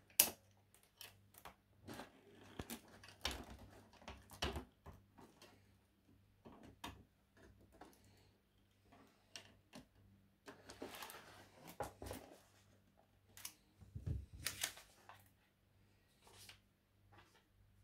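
Faint handling of a toy's cardboard box and plastic packaging: irregular clicks, taps and short rustles. The sharpest click comes right at the start, and a duller low knock about three quarters through.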